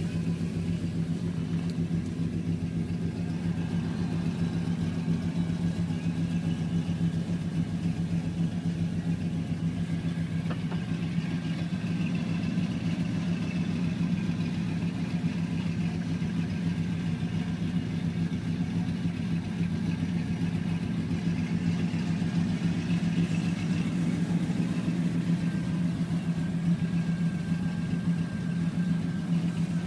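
1968 Chevevelle Malibu engine idling steadily, heard from inside the car's cabin.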